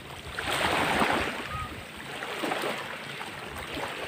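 Small waves washing at the shoreline in shallow water, the wash swelling and fading, loudest about a second in.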